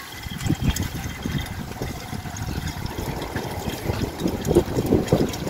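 Water pouring from a drinking-water vending machine into a 19-litre plastic bottle, with the machine's pump running. Irregular low rumbling runs through it.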